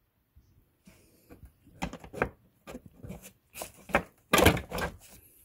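Plastic intake parts and a ribbed rubber intake boot knocking and scraping as they are pushed into place by hand. It is a run of thumps and rubs that starts about two seconds in and is loudest near the end.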